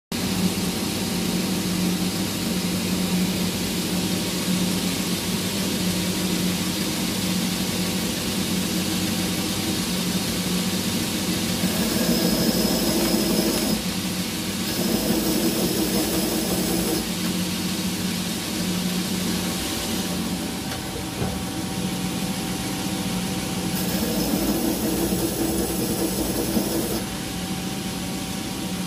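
Belt grinder running steadily with a low hum. In three stretches, from about twelve seconds in, a harsher grinding joins it as the timascus pocket clip is pressed against the belt.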